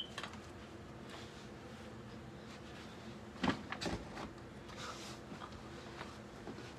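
A few soft knocks and rustles of someone moving and handling things. The two loudest knocks come about three and a half and four seconds in.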